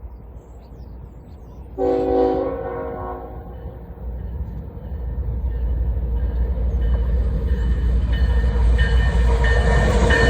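Grain freight train's locomotive horn sounding one chord-like blast of about a second and a half, about two seconds in, followed by the low rumble of the approaching train growing steadily louder.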